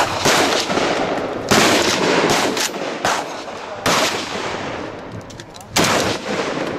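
Gunfire at an open-air range: several loud shots, a second or two apart, with lighter cracks in between. Each shot echoes and fades out slowly.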